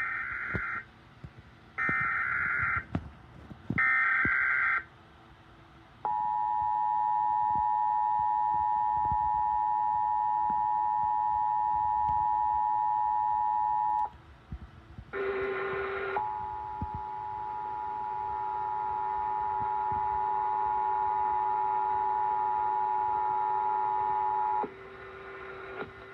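Emergency Alert System test signal: three short warbling data bursts of the digital alert header, about two seconds apart, then the steady two-tone attention signal held for about eight seconds. After a brief burst comes a second steady tone that lasts about eight more seconds and then cuts off.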